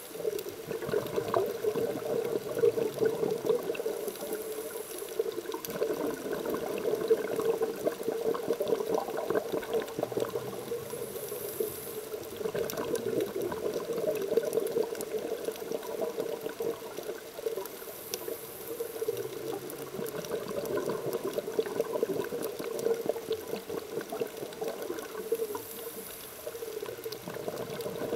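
Underwater, a scuba diver breathing through a regulator: a short high hiss of inhalation every six to seven seconds, each followed by a crackling, gurgling stream of exhaled bubbles.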